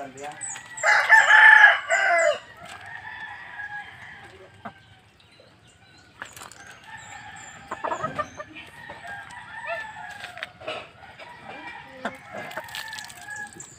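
A rooster crows once, loudly, about a second in, then chickens cluck softly and on and off.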